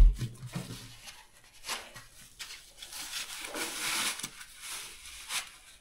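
Plastic wrapping and foam packing rustling and crinkling as a long LED light bar is lifted out of its cardboard box, with scattered clicks and a knock right at the start.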